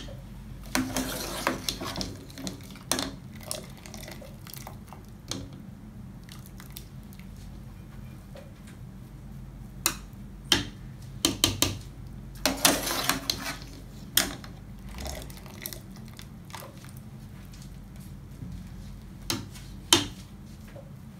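A wire mesh strainer scooping par-boiled rice out of boiling water and tipping it into a steel pot, with scattered metal clinks and knocks against the pot rims and brief spells of rice and water dropping. A steady low hum runs underneath.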